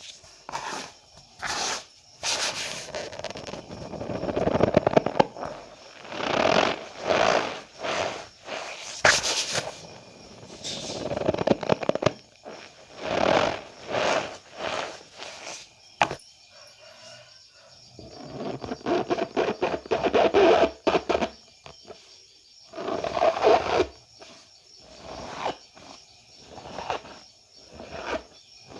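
Cornstarch powder being squeezed and pressed by hand, giving repeated squeaky strokes at an irregular pace, with a few longer squeezes.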